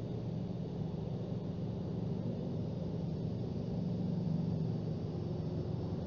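Steady low hum and rumble of background noise picked up by an outdoor livecam microphone, with no distinct calls or knocks.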